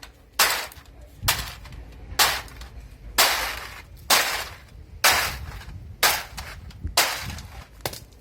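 Aluminium drink cans being crushed flat with repeated heavy blows, about one strike a second, nine in all, each a sharp metallic crunch.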